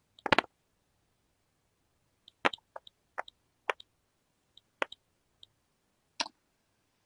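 A handful of short, sharp clicks, about seven, irregularly spaced over several seconds, as presentation slides are clicked through one after another.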